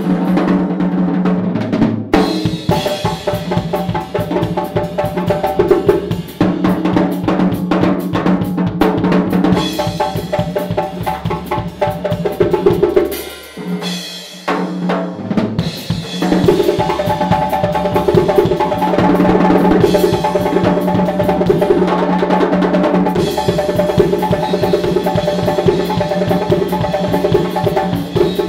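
A djembe and a drum kit playing together in a fast, dense groove, hand strikes on the djembe over kick drum and snare. About thirteen seconds in the playing thins out and drops in level for a couple of seconds, then the full groove comes back.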